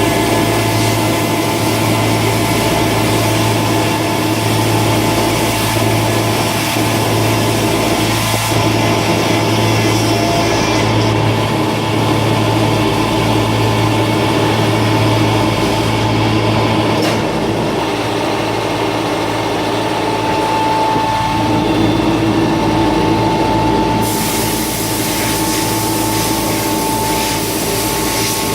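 YL-12242R CNC woodworking router running, a continuous machine noise with steady humming tones. A low hum drops out a little over halfway through, and a higher steady whine comes in a few seconds later.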